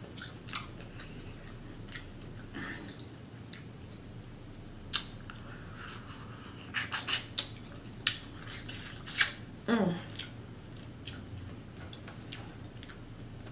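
Close-miked eating sounds from sucking and smacking on shell-on boiled shrimp: scattered wet clicks and smacks, thickest around the middle, with a brief hummed sound of enjoyment about three-quarters of the way through.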